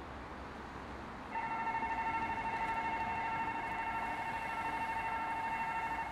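Railroad crossing warning bell, electronic, starting about a second in and ringing steadily as a high, fast-pulsing chime over a low traffic hum.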